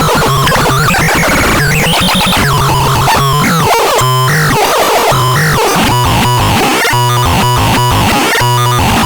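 Loud electronic sound demo from an ASMAR C1002TN: synthesized tones that sweep up and down, then switch about four seconds in to rapid on-off pulsing beeps over a low tone that steps between pitches.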